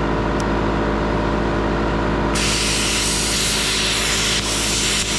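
Hand-held plasma cutter cutting bolts off a steel pipe flange: a little over two seconds in, the arc strikes and a loud, steady hiss of the cutting arc and air jet starts and holds. A steady machine hum runs underneath throughout.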